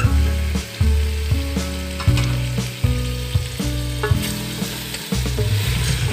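Pieces of meat sizzling as they fry in a steel pot, stirred with a wooden spoon, with a few scraping clicks. Underneath run low steady tones that shift in pitch every second or so.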